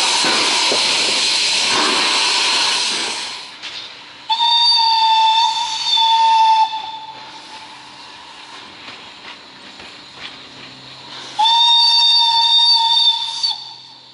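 Steam locomotive 314 303 letting steam hiss out low beside its wheels for about three seconds. Then its steam whistle gives two long blasts on one steady pitch, each about two seconds, some five seconds apart.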